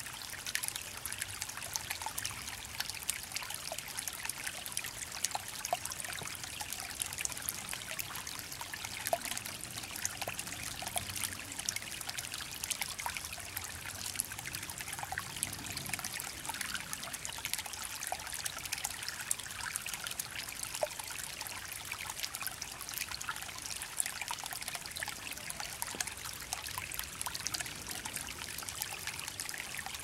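Shallow forest creek trickling over small stones: a steady, even babble of water with many tiny splashes.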